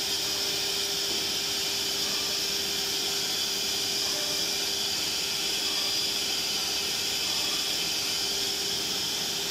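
Four-spindle pneumatic CNC router running with its spindles and dust extraction going: a steady, even hiss with a steady tone beneath it.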